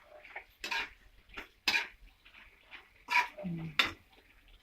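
A spoon knocking and scraping against a cooking pan while a curry is stirred, with several separate clinks.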